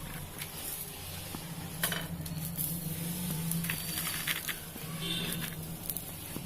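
A few light clinks and knocks of cookware over a steady low hum.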